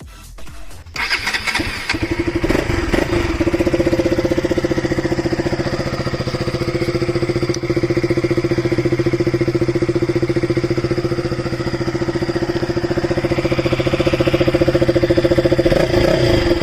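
KTM RC 200's single-cylinder four-stroke engine starting about a second in and settling into a steady idle, freshly filled with Motul 20W-50 oil; the note gets slightly louder near the end.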